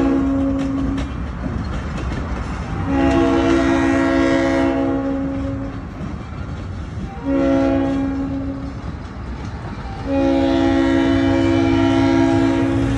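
Locomotive air horn on a GE B39-8E sounding over the train's rolling rumble: the end of one long blast about a second in, then a long blast, a short one and another long one. This is the long-long-short-long grade-crossing signal.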